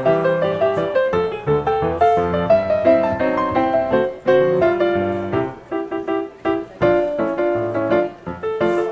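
Background piano music, a continuous melody of quick notes over a lower accompaniment.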